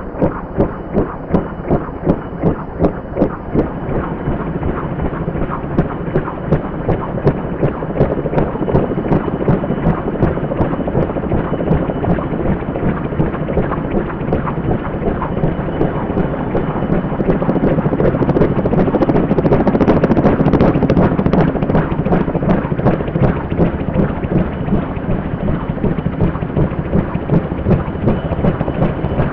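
Fuji-Bell 204B-2 helicopter hovering low: its two-bladed main rotor beats in a steady rhythmic thump over the turbine's running noise. The thumping grows louder and denser about two-thirds of the way through as the machine moves toward the camera.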